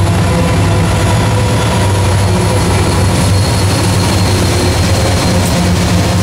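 Norfolk Southern diesel freight locomotives passing close by, their engines running with a loud, steady low drone over the rumble of the train.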